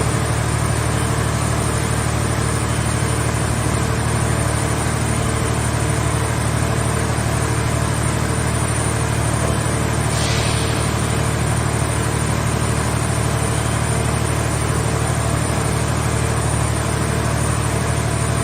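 The engine of a mobile car scrap baler running steadily at a constant speed, with a short hiss about ten seconds in.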